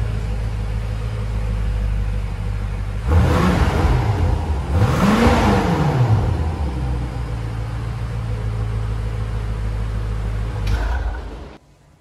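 BMW X6 M Competition's twin-turbo V8 idling through a Fi Exhaust valvetronic catback with its valves closed, blipped twice: a short rev about three seconds in and a higher, longer rev about five seconds in, each falling back to idle. The sound cuts off sharply near the end.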